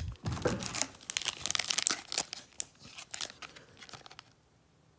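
Cardboard trading cards being handled and turned over by hand: a quick run of paper rustling and light card clicks that fades out near the end.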